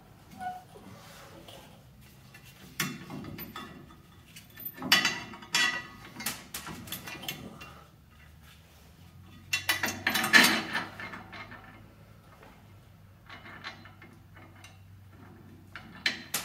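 Metal hand tools and bolts clanking and scraping against a car's front suspension in several irregular bursts, the loudest about halfway through.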